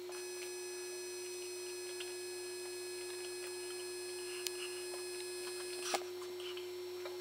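A steady, even hum on one pitch, with a faint high whine above it and two small clicks, about four and a half and six seconds in.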